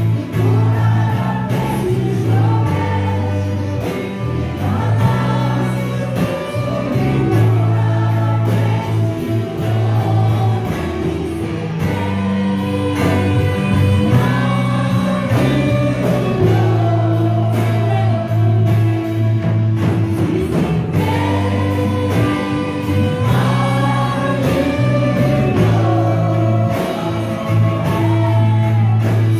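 Live worship band and group of singers performing a slow gospel-style song, with sustained bass and a steady beat under the sung melody.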